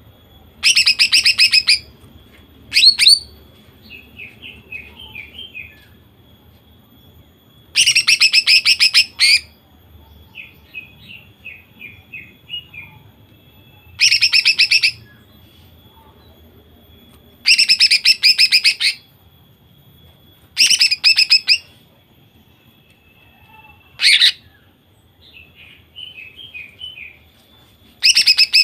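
Female greater green leafbird (cucak ijo) singing in loud, very rapid machine-gun-like bursts, the 'nembak' delivery, each up to about a second and a half long and repeated every few seconds, with softer chattering phrases between the bursts.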